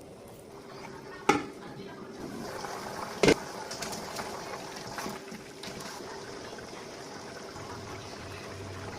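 Sauce bubbling and simmering in a cooking pan, a steady hiss and burble, with two sharp knocks of a utensil on the pan, the louder about three seconds in.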